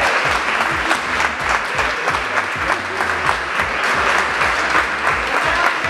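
Audience applauding: many hands clapping in a steady patter.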